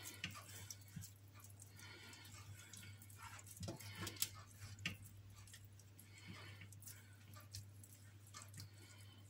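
Faint swishing and light scraping of a silicone pastry brush spreading oil over a metal baking tray, over a low steady hum.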